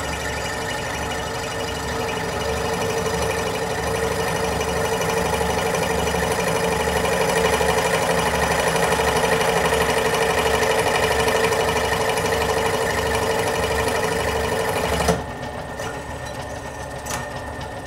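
Scroll saw running steadily, its coarse blade of about 15 teeth per inch under high tension and sawing through a thin brass plate. About fifteen seconds in the sound drops to a quieter level. The cut goes smoothly with this blade, which the sawyer calls much better than the earlier one.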